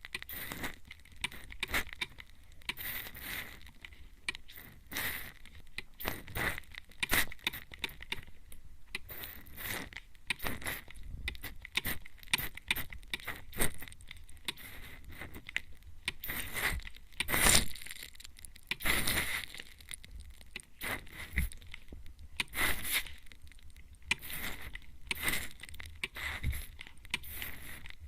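Spray bottle (atomizer mister) sprayed at the ear close up: repeated short hissing spritzes, about one or two a second, with a longer, louder spray about two-thirds of the way through.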